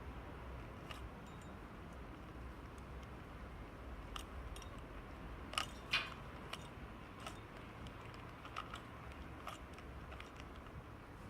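A plastic Rubik's Cube being turned by hand: irregular clicks and clacks as its layers rotate, two louder ones about halfway through.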